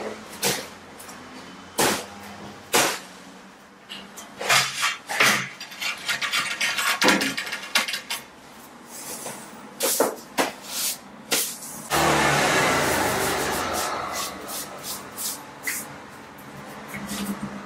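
Wood-look porcelain floor tiles being set in adhesive by hand: a run of sharp knocks and clacks as tiles are placed and tapped down with a rubber mallet. About twelve seconds in, a sudden rush of noise starts and fades away over about three seconds.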